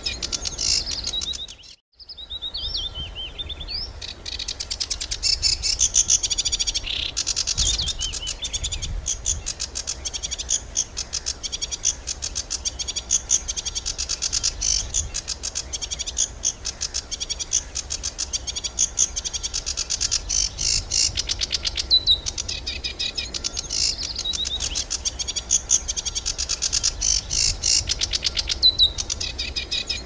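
Small songbird singing a long, fast run of high chirps and trills, almost without a pause. The song drops out for a moment about two seconds in.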